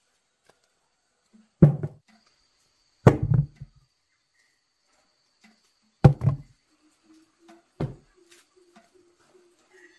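Peeled ripe bananas dropped one at a time into a plastic bucket: three loud thuds a second or more apart, then a lighter fourth one.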